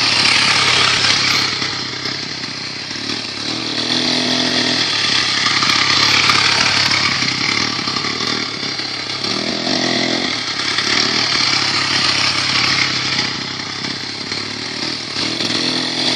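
Two-stroke chainsaw engine on a homemade moped running under way, its high, buzzing note swelling and fading as the moped rides toward and away.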